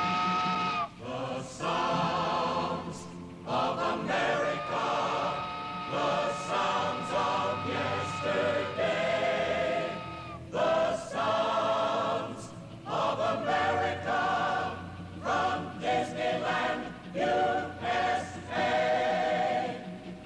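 A choir singing in harmony over musical accompaniment, with long held chords between shorter phrases.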